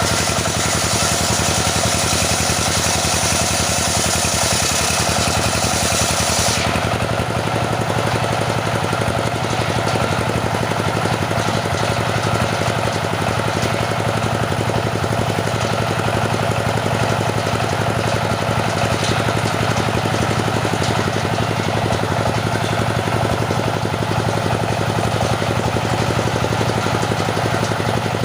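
Engine-driven circular saw running steadily while sawing teak. A high, hissy cutting noise drops away about six and a half seconds in, leaving the engine and spinning blade running on at the same loudness.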